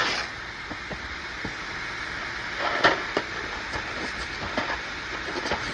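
Pot of macaroni at a rolling boil on the stove: a steady bubbling hiss with scattered pops, and a brief louder burst of pops about halfway through.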